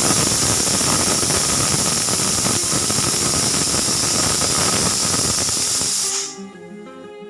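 Pressure cooker whistle: steam venting through the weight valve in a loud, steady hiss that stops about six seconds in. Soft instrumental music with plucked notes follows.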